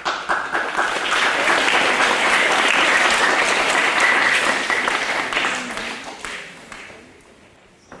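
Audience applauding: many hands clapping that starts suddenly, holds steady for about five seconds, then dies away.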